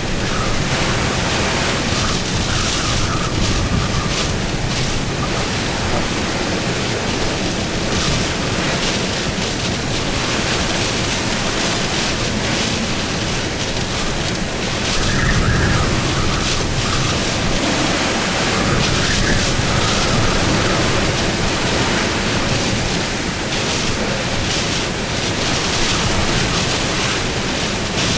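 Hurricane Ida's back-eyewall wind blowing at full force, a loud, steady rush that swells and eases in gusts, with its strongest gust a little past halfway.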